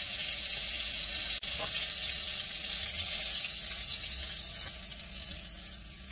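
Breaded chicken wings sizzling steadily as they deep-fry in hot oil in a pan, the sizzle fading near the end.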